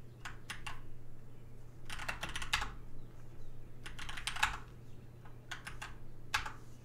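Computer keyboard typing: five quick runs of keystroke clicks with short pauses between them, as a terminal command is typed in.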